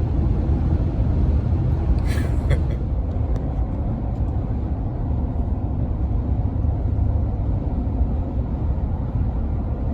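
Steady low road and engine rumble inside a moving car, with a brief voice about two seconds in.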